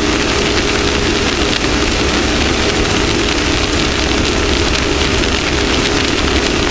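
Off-road race vehicle's engine running at a steady, unchanging speed, under loud rushing noise from wind and terrain.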